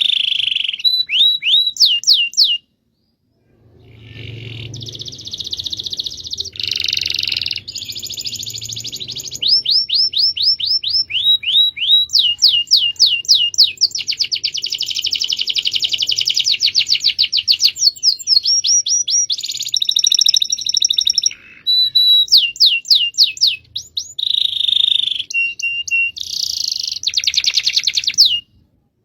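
Domestic canary singing a long, continuous rolling song of fast trills and rapidly repeated sweeping notes, with one short pause about three seconds in.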